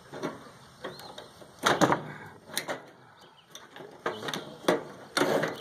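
Irregular knocks, clicks and clanks of a microwave oven's metal casing and parts being handled and worked on during dismantling, the loudest knock about two seconds in.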